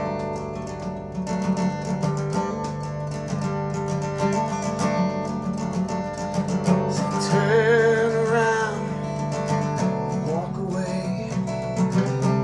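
Acoustic guitar strummed and picked in a slow folk song's passage between verses, with a wordless sung line, wavering in pitch, over it a little past halfway and briefly again near the end.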